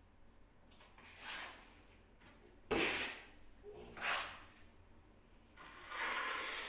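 Hand work at a tiled wall: four short scraping and rubbing sounds, the second starting with a sudden knock and the loudest, the last a longer rub.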